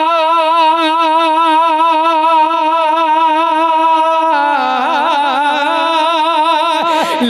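Devotional naat music: one long note held with vibrato for about four seconds, then a run of quickly changing notes.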